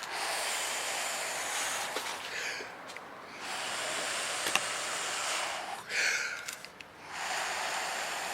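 A man's heavy, labored breathing close to the microphone: three long, hissing exhales about every three and a half seconds, with shorter, raspier inhales between them. This is the breathlessness of COPD.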